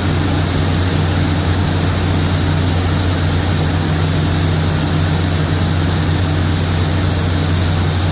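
An engine running steadily at constant speed, with a strong low hum under a loud, even hiss.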